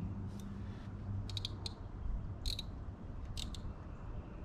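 Ultralight spinning reel clicking in short, irregular ticks while a hooked fish is fought and reeled in, over a low, steady background rumble.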